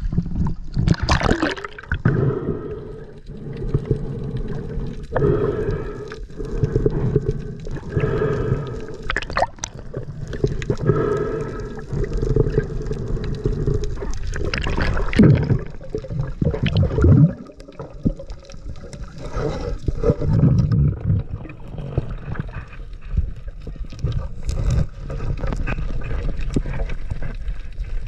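Water sloshing and gurgling around a diver's action camera at the surface, then dull underwater noise as the camera goes under, with a few sharp splashes or knocks.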